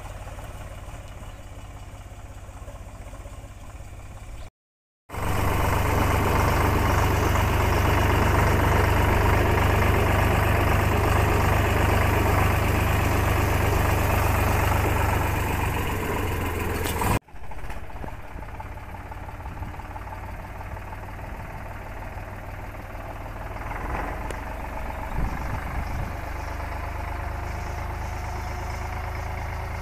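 Eicher 485 tractor's three-cylinder diesel engine running steadily while towing a tine cultivator. It is heard from behind, then, after an abrupt cut about five seconds in, much louder from the driver's seat for about twelve seconds, then from behind again after a second cut.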